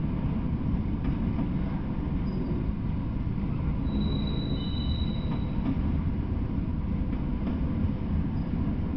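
Freight train of autorack cars rolling past, with a steady rumble of wheels on rail. About halfway through there is a brief high-pitched wheel squeal.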